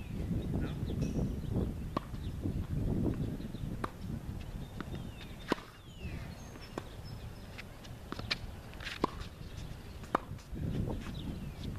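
Tennis balls struck by rackets and bouncing on a hard court during a warm-up rally: about six sharp pocks, one every second or two, over wind rumbling on the microphone.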